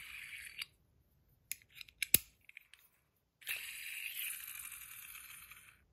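AntDesign Comma 2.0 fidget coin spinning in its spinner mode, a steady high whir that fades away. A few sharp metallic clicks follow as it is handled, then a second spin starts about three and a half seconds in and fades out near the end.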